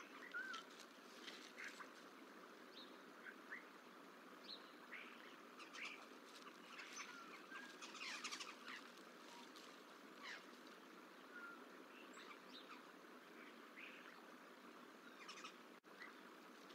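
Faint, scattered bird chirps and short calls over a steady low outdoor hiss from the nest-cam microphone. The sound cuts out for an instant near the end.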